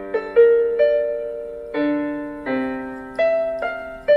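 Casio digital keyboard played with a piano sound: a simple, slow beginner's tune of single melody notes over held lower notes, each struck and then fading, about eight notes in all.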